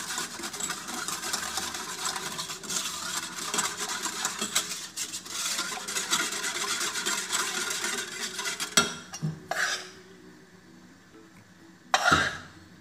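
A spoon stirring and scraping around a pan of flour-and-milk white sauce for béchamel, with clinks against the pan. The stirring stops about nine seconds in, and a few single knocks follow.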